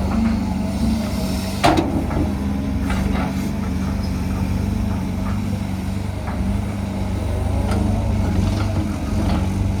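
Cat 320GC excavator's diesel engine running steadily under work, with a sharp metallic knock about a second and a half in and lighter clanks after it.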